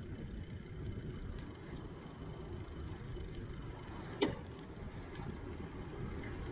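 Bicycle riding along a paved road: a steady low rumble of wind on the microphone and tyres rolling, with one sharp click about four seconds in.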